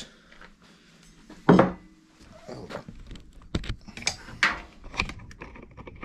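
Handling noise on a wooden workbench: one louder knock or scrape about one and a half seconds in, then a run of short sharp knocks and light metallic clinks as a short steel box-section offcut is set down and the phone camera is picked up and moved.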